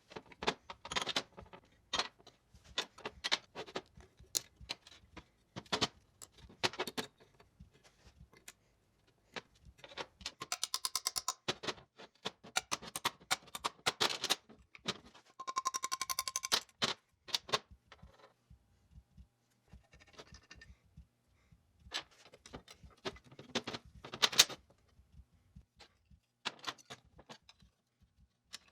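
Hand tools working on metal engine parts: scattered sharp metallic clicks and taps, with two short runs of rapid clicking about ten and fifteen seconds in.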